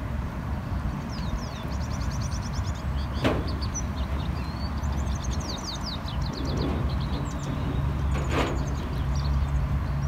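Outdoor ambience at a pond: a steady low rumble, with quick high chirping runs repeating every second or so, and two short sharp sounds, about three seconds in and near the end.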